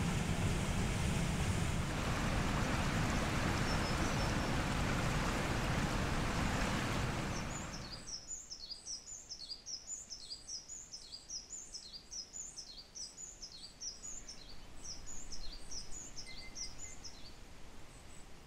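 Rushing water of a creek at a waterfall, a loud, even rush that cuts off suddenly about seven seconds in. After it, in a quiet background, a small bird calls over and over with quick, high notes that fall in pitch.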